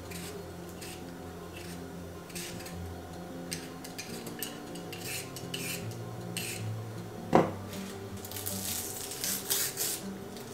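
Hand vegetable peeler scraping the skin off potatoes and a carrot in short, repeated strokes that come thick and fast near the end, with one sharp knock about seven seconds in. Soft background music runs underneath.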